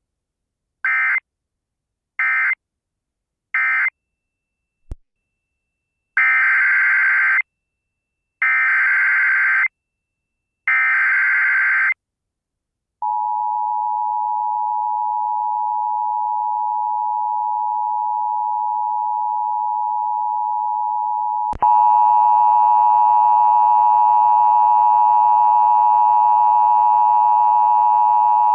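Emergency Alert System data bursts and attention tone from a Sage EAS ENDEC. Three short data bursts (the end-of-message code) close the previous alert. They are followed by three longer bursts of the next alert's header. Then a steady two-tone attention signal sounds; about eight seconds in it becomes louder and harsher.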